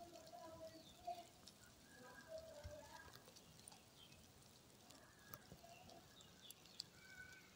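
Silkworms chewing mulberry leaves: a very faint, scattered crackle of tiny ticks, like light rain, at near-silence level.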